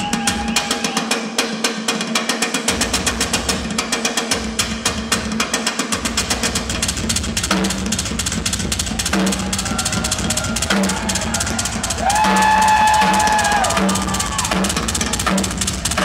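Live drum solo on a Yamaha rock kit: very fast snare and tom strokes over cymbals, with rapid double-bass-drum strokes coming in about three seconds in. A long held tone rises over the drums about twelve seconds in.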